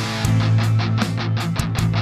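Rock band music: guitars and bass guitar over drums keeping a steady, even beat.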